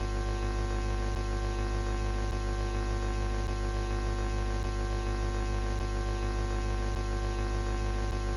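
Steady electrical mains hum with a buzzing stack of overtones, unchanging throughout.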